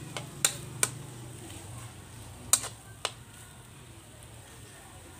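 Metal spatula clinking against a wok as fried rice is stirred: four sharp clinks, unevenly spaced over the first three seconds.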